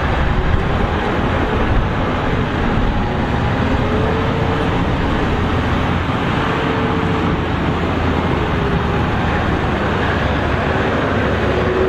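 Massey Ferguson 7726 tractor's six-cylinder diesel engine running hard and steady under pulling load, with a faint whine that comes and goes.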